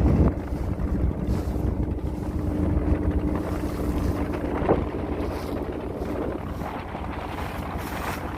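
Fishing boat's engine running under way, a steady hum over heavy wind buffeting the microphone; the hum fades about six seconds in.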